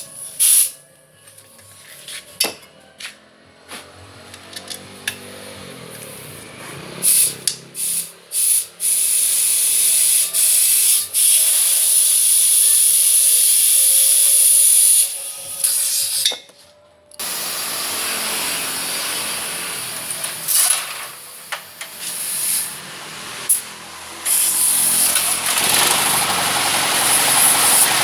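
Compressed air hissing: several short bursts, then long stretches of steady hiss broken by brief stops.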